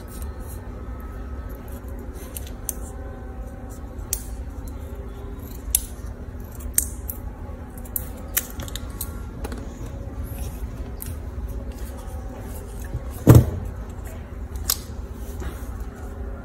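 Scissors snipping a plastic drinking straw: scattered sharp clicks of the blades, with one much louder knock about two thirds of the way through, over a low steady hum.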